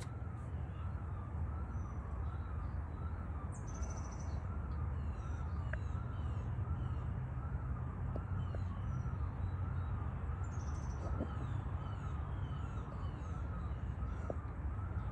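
A frog hidden in a gap between beams calls steadily: one unbroken warbling note that rises and falls in pitch about one and a half times a second, like a slow siren. Small birds chirp in the background over a steady low hum.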